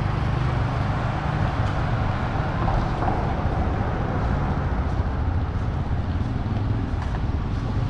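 Street traffic: motorbike and car engines making a steady low rumble.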